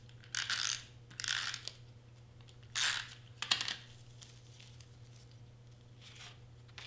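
Glue tape runner drawn across cardstock in four short rasping strokes over the first four seconds, followed by a fainter rustle of cardstock being handled near the end.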